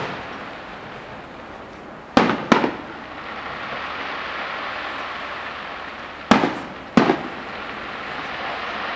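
Aerial fireworks shells bursting: two pairs of loud bangs, about two seconds and about six seconds in.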